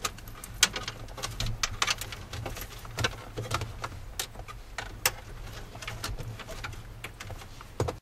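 Irregular light clicks and rattles of a wiring harness and plastic connectors being handled and tucked in behind a car radio, a few per second and uneven, over a steady low hum.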